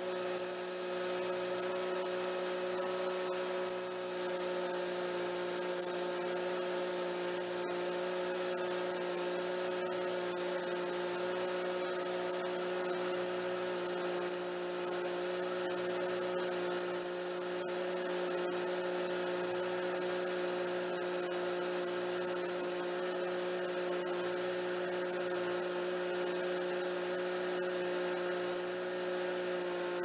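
Stick welding arc crackling and hissing over the steady drone of an engine-driven Miller Trailblazer 302 welder-generator held at welding speed while the bead is run.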